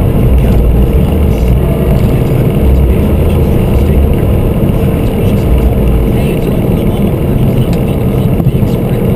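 Cabin noise of a Mini Cooper S on the move: a steady low rumble of road and engine with a faint steady hum.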